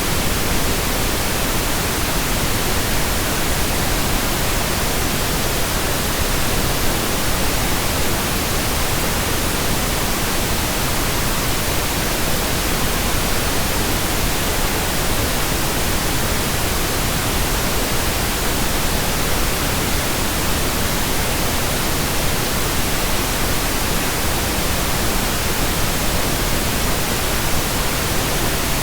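Pink noise: a steady, even hiss spread across all pitches, with no change in level or character.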